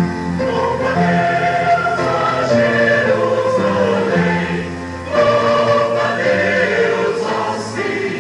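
Church choir singing a hymn, several voices together, with a brief dip between phrases about five seconds in.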